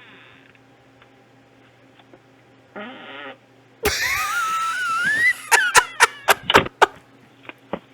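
A loud fart picked up by a doorbell camera's microphone. A rasping blast that rises in pitch starts about four seconds in. It is followed by a quick string of about seven short sputters.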